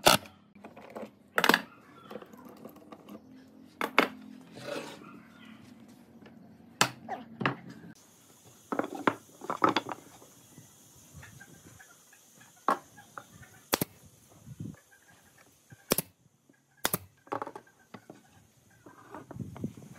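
Scattered sharp knocks and clicks of pine boards being handled and set down on a wooden table.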